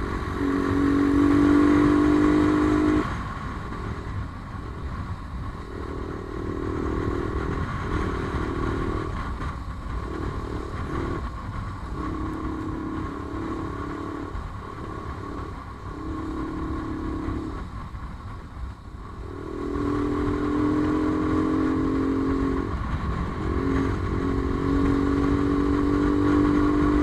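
Motorcycle engine running on the move, its note holding steady for stretches and dropping away and coming back several times as the throttle is eased and opened, over a steady low rumble.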